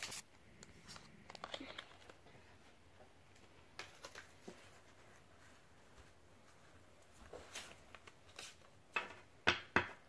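Pokémon trading cards being handled: scattered soft clicks and rustles of card stock sliding against other cards and the table, with a few sharper card clicks near the end.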